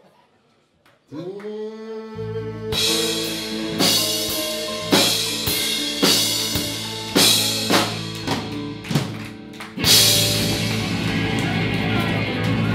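Rock band playing live with electric guitars, bass and drum kit. After a brief gap a note slides up and a low bass note holds, single drum hits come in at about one-second intervals, and about ten seconds in the whole band comes in together on a cymbal crash.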